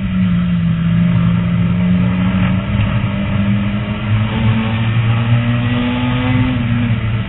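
Race car engine heard from inside the cockpit at racing speed, its pitch sagging and rising again as the car lifts off and accelerates through a bend, with a drop in pitch near the end.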